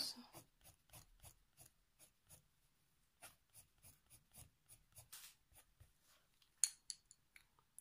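Faber-Castell Polychromos coloured pencil shading on paper: faint, quick scratchy strokes, several a second, with a couple of louder strokes near the end.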